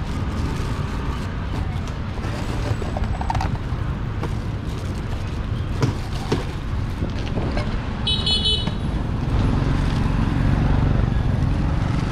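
Steady rumble of street traffic, with a short high-pitched vehicle horn beep about eight seconds in.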